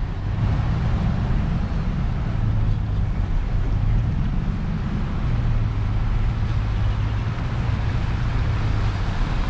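Steady rumble of a car driving, with a continuous rush of wind noise over it.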